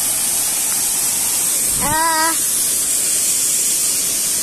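Waterfall pouring, a loud, steady rush of falling water; a person's voice makes one short sound about two seconds in.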